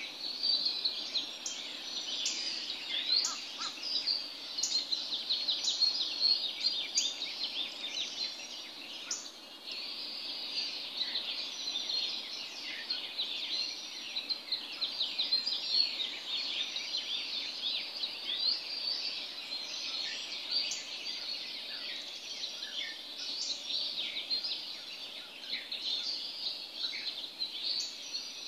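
Dawn chorus of many birds calling at once: a dense, unbroken mass of short high chirps and quick down-slurred whistles overlapping one another.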